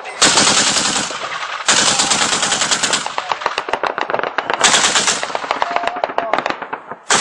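Automatic gunfire in several long bursts of rapid shots, with short breaks between bursts: ground fire aimed at a warplane overhead.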